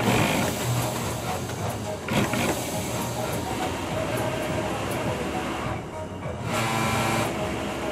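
Pegasus industrial sewing machine running as fabric is fed through it, with a brief drop in level about six seconds in.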